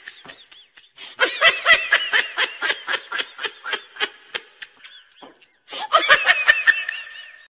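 High-pitched laughter in quick repeated bursts, about four or five a second. It comes in three bouts: one trailing off at the start, a long one from about a second in, and another near the end.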